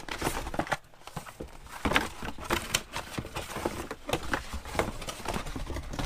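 Cardboard box and packaging inserts being handled and rummaged through by hand: an irregular run of light knocks, taps and crinkling rustles.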